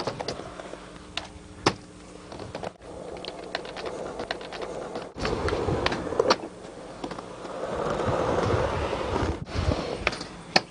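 Skateboard wheels rolling on a ramp, louder in the middle and second half, with sharp clacks of the board and trucks striking the surface. The sound breaks off suddenly a few times where one clip cuts to the next.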